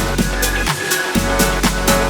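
Electronic dance music with a steady, fast beat; the bass drops out for a moment about a second in.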